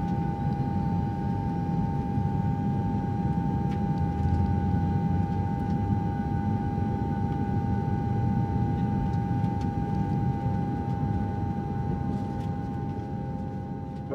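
Steady low rumble of a vehicle in motion, with a steady high hum over it, easing off near the end.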